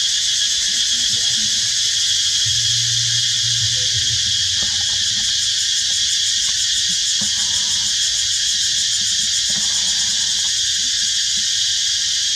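Loud, steady chorus of forest insects: a continuous high-pitched drone with a fine, rapid pulsing.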